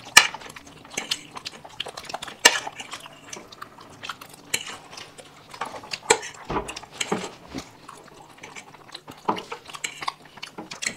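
Cutlery and plates clinking and scraping as people eat, in irregular sharp clicks.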